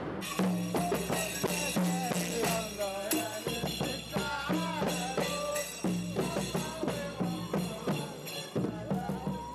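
Traditional folk music played live: large frame drums and hand drums beating a steady rhythm while voices sing a melody over it.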